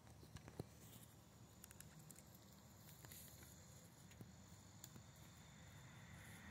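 Faint rustling and scattered small clicks of dry pine needles and leaf litter as a nine-banded armadillo roots and digs in it, with one sharper click about half a second in.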